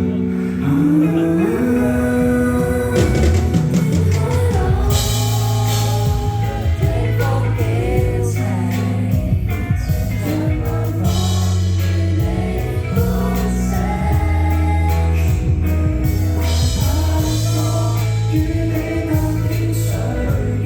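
A song with a singer over a band backing of steady bass notes, drums and guitar.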